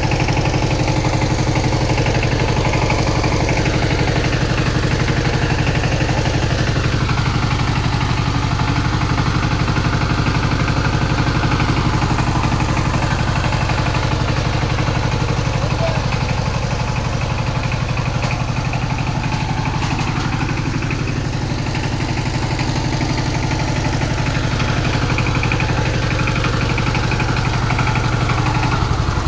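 Two-wheel power tiller's single-cylinder diesel engine running steadily, a fast even chugging as the machine drives along.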